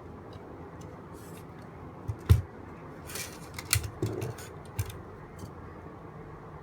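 A few sharp clicks and knocks from a small cable connector being pushed back into the graphics card and the card being handled, with the loudest knock about two seconds in and a scattered run of smaller clicks after it.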